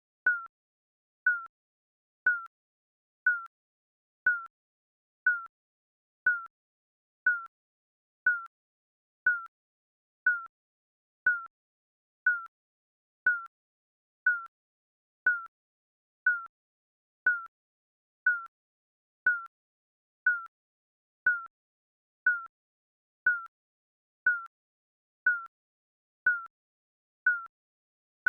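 Digital countdown timer beeping: one short, high electronic beep every second, evenly spaced, with silence between beeps.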